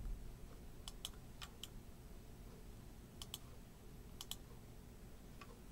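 Quiet clicks from operating a computer, coming in about five close pairs spread across a few seconds, over a faint low hum.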